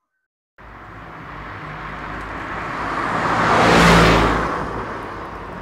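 A motor vehicle passing close by: engine and road noise swell to a peak about four seconds in, then ease off. The sound starts and stops abruptly at the clip's edits.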